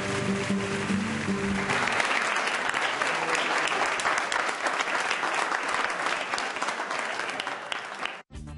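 Background music for the first two seconds, then an audience applauding for about six seconds. The applause cuts off abruptly near the end and different music starts.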